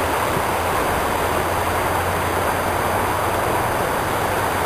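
Steady rush of a shallow river running over rocks, with a low steady hum underneath.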